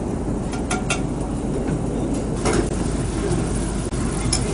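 Steady background din of a busy dining hall, a low rumble of voices and kitchen noise, broken by a few short sharp clicks.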